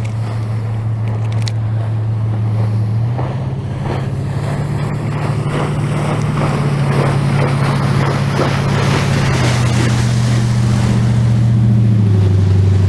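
Boat motor running steadily, its hum stepping up in pitch about three seconds in and dropping back near the end, over a hiss of wind and water.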